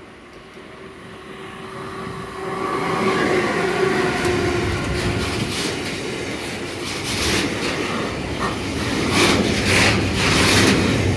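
Electric locomotive hauling an intermodal container train approaches with a whine that grows louder, then runs past. The container wagons' wheels clatter over the rail joints, loudest near the end.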